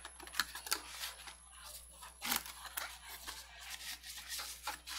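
A small cardboard gift box being opened by hand: irregular scraping, tearing and rustling of cardboard and paper, with one louder stroke a little over two seconds in.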